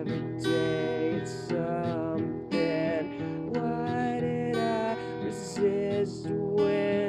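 Acoustic guitar strummed in a song, with a voice singing over it.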